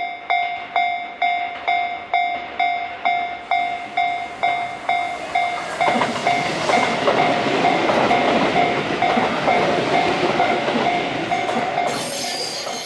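Japanese level-crossing warning bell ringing about twice a second. About six seconds in, a Tobu Railway train passes over the crossing and its running and wheel noise rises over the bell.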